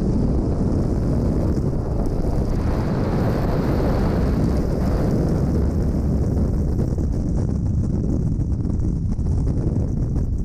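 Freefall airflow buffeting a GoPro camera's microphone: a loud, steady rush of wind noise that swells a little a few seconds in.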